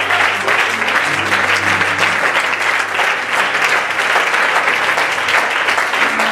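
Congregation applauding steadily, with instrumental music holding low sustained notes underneath.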